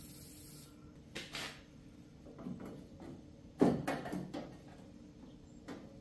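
Aerosol spray can of weld-through primer hissing, cutting off under a second in. It is followed by a series of knocks and clunks of parts being handled, the loudest about halfway through.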